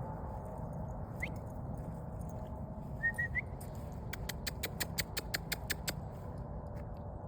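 Bird calls over a steady low outdoor rumble: a short rising chirp, then three quick rising notes, then a fast even series of about a dozen sharp clicking notes.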